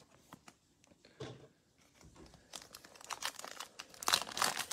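Wrapper of a 2021 Absolute football trading-card pack crinkling and tearing as it is ripped open by hand, the crackling growing louder in the second half.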